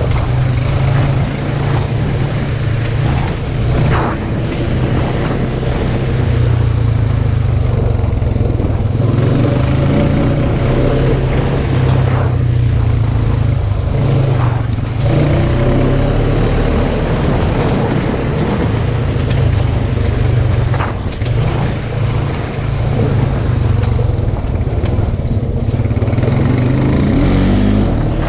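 Off-road side-by-side UTV engine running loudly, with revs rising and falling several times.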